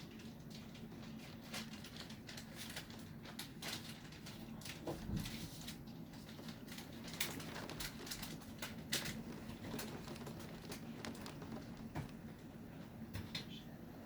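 Scattered raindrops pattering irregularly near the microphone as a thunderstorm arrives, some drops hitting louder than others, over a faint steady low hum.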